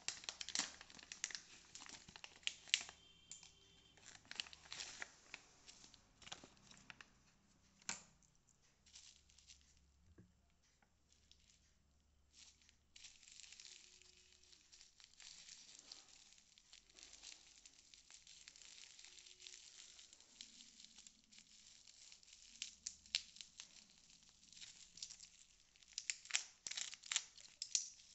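Faint crinkling and tearing of plastic packaging as a clear pouch is pulled open by hand, then bubble wrap around a small bottle crinkling under the fingers. Sharper crackles come in clusters in the first few seconds and again near the end.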